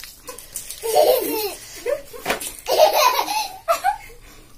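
People laughing in short bouts, with one sharp tap a little past halfway.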